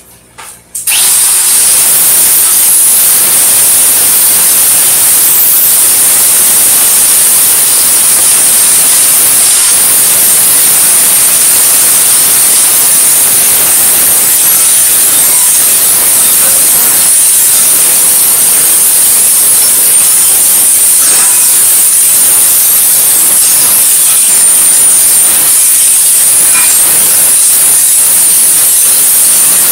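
A hand grinder with an abrasive pad starts about a second in and runs steadily as a loud, high-pitched hiss, grinding the burrs off the cut edges of a steel propane tank.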